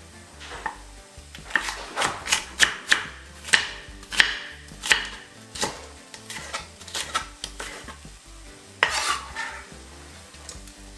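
Chef's knife chopping yellow bell pepper on a wooden end-grain cutting board: a run of sharp, irregular chops, about two a second, then a longer scrape about nine seconds in.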